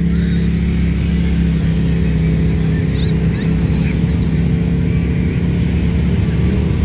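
Side-by-side UTV engine running steadily, holding an even pitch without revving.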